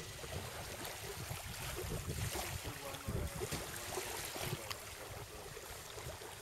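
Wind buffeting the microphone over the wash of small waves at the water's edge, with a few faint clicks.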